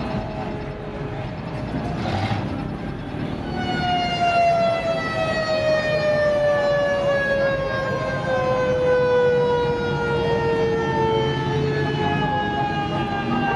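A siren sounding one long tone that starts about three and a half seconds in and slowly falls in pitch, over a low rumble.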